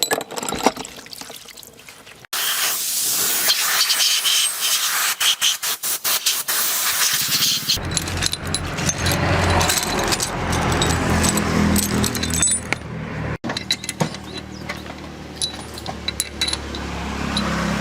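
A loud hiss for about five seconds, then a farm tractor's engine running steadily with a low, even hum.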